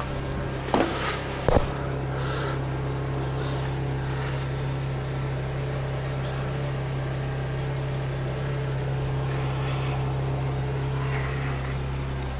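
An engine idling with a steady low hum. Two sharp knocks come about a second in.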